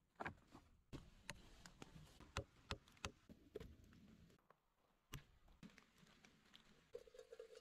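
Faint, irregular sharp taps and knocks, a couple of dozen over about five seconds, then a short pause. Near the end a steady low hum begins.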